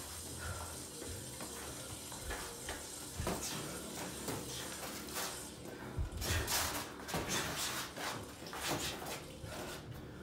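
Two people boxing sparring: shuffling footwork and gloved punches, busiest from about six seconds in, when a quick run of sharp strikes comes.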